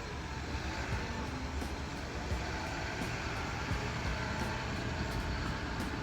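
Front-end loader's engine running steadily with a low rumble.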